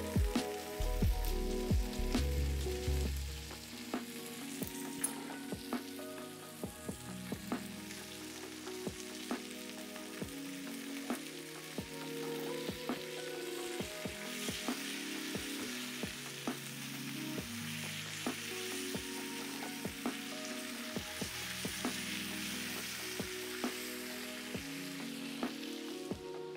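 Two steaks sizzling in melted butter in a hot pan while being spoon-basted and turned, with a steady fizzing and scattered sharp clicks of the metal spoon and tongs against the pan. Soft background music with held notes plays underneath.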